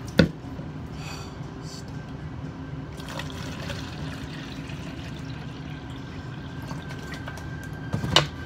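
Water pouring from a plastic jug into a large fast-food cup. Two sharp knocks, one just after the start and one near the end, as the cup and jug are handled on the counter.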